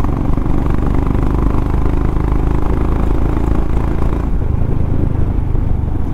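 Motorcycle engine running steadily on the move, with a hiss over it that drops away about four seconds in.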